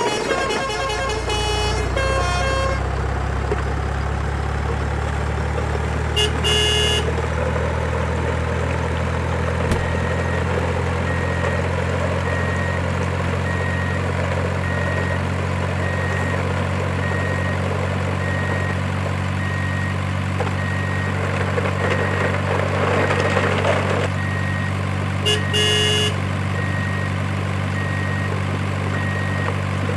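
Truck engine sound effect idling with a steady low hum, with a short horn toot about six seconds in and again near the end. A faint beep repeats about once a second from about ten seconds in, and a rush of noise builds and cuts off abruptly about two-thirds of the way through.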